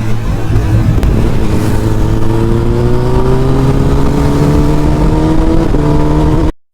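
Kawasaki ZX-10R inline-four with an Akrapovic full-system exhaust, pulling steadily under throttle with its note climbing slowly in pitch over a rushing noise of wind and road. The sound cuts off abruptly near the end.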